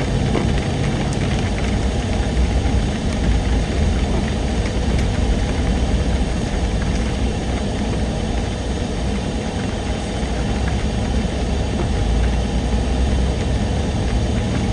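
A car being driven along a wet, muddy road: steady engine and tyre noise.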